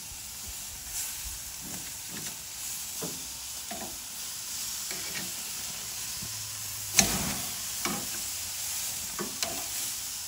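Skirt steaks searing on a grill grate at about 650°F, sizzling steadily. A few clicks of metal tongs turn the meat, with the sharpest knock about seven seconds in.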